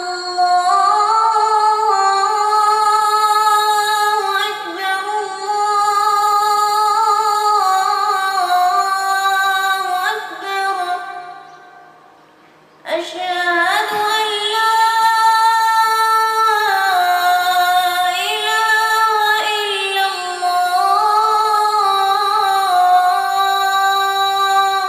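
A child's high voice reciting the Quran in melodic tajweed style: two long, drawn-out phrases with held, ornamented notes, separated by a short breath pause about halfway through.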